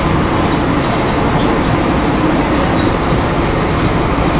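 Steady low rumble of a vintage electric tram standing at a stop, mixed with street traffic noise.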